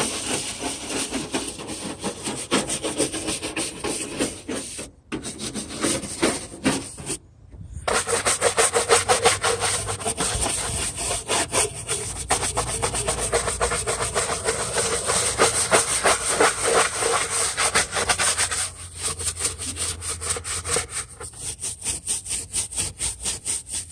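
Stiff bristle brush scrubbing degreaser-soaked surfaces in a car's engine bay, in fast back-and-forth strokes. It stops briefly twice in the first third.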